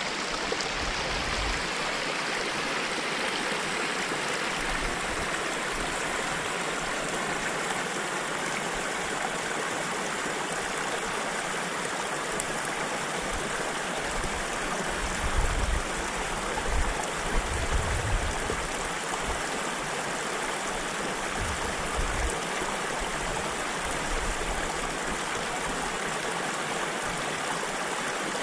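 Small snowmelt stream running steadily over rocks right beside the trail, with a few brief low bumps about halfway through.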